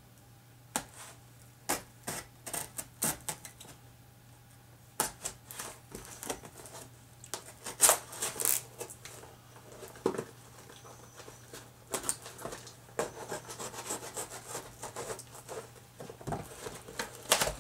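A curved-blade knife cutting and scraping along the taped seams of a cardboard shipping box, in irregular scratches and sharp clicks. They grow busier after about five seconds, and cardboard is handled near the end as the flap is worked loose.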